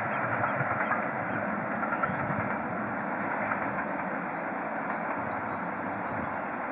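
Steam locomotive hauling a passenger train along the line, heard as a steady, even running noise with no separate exhaust beats standing out.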